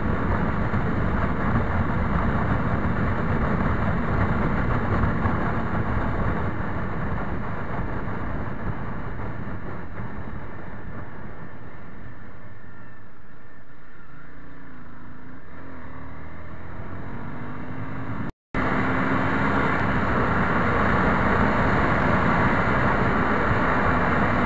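Honda CBR250 motorcycle riding at speed, with heavy wind rush over the microphone and the engine running underneath. Around the middle the wind eases as the bike slows, and the engine note dips and then climbs again as it picks up speed. After a brief dropout near the end, the wind and a steady engine note return.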